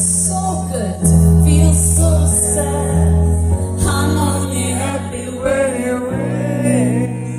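Live rock band with a female lead singer singing over held low bass notes that change every couple of seconds.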